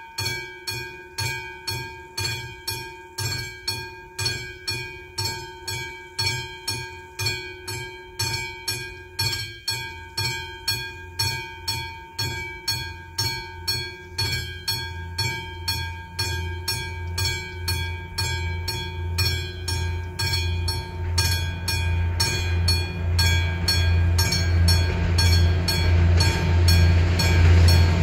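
Level-crossing warning bell ringing in an even rhythm, about one and a half strokes a second. From about halfway in, the low hum and rumble of an approaching diesel train rises beneath it and grows steadily louder toward the end.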